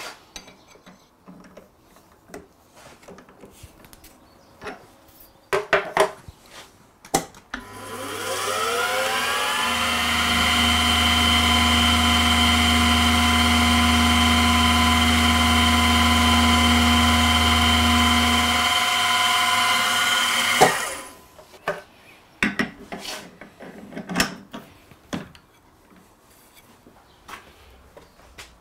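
Metal milling machine spinning up with a rising whine, running steadily with a low hum for about ten seconds, then stopping abruptly. Scattered knocks and clicks of metal parts being handled come before and after it.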